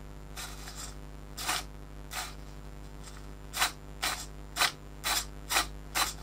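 A small servo moving the clutch release lever in short, quick whirring strokes, about ten in all and coming faster after the first few seconds, over a steady low hum.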